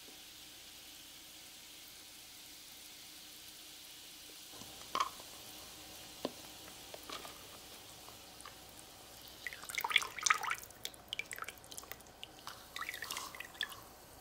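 Water dripping and splashing as a small plastic stacking cup is lifted out of water in a larger plastic cup: a faint steady hiss at first, a few single drips or knocks from about five seconds in, then a quick run of splashes and drips in the last few seconds.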